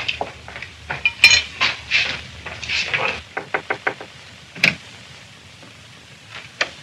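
Cutlery and plates clinking and knocking at a laden dinner table. A quick run of light taps comes about three seconds in, and one sharper clink follows about a second later.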